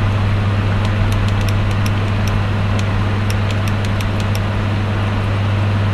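A steady low electrical hum with a fan-like rushing noise, continuous and unchanging. A scattering of faint, sharp high ticks sits over it.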